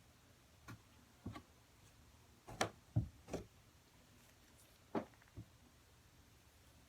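Light handling sounds: a scattered series of short taps and clicks, about eight in all, the loudest three close together about two and a half to three and a half seconds in.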